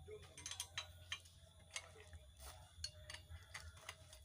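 Faint, irregular light clicks and ticks over a low steady hum.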